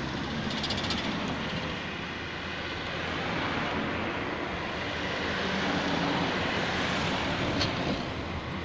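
Steady road noise from a car driving at speed on a paved highway: a rush of tyres and wind with engine hum underneath.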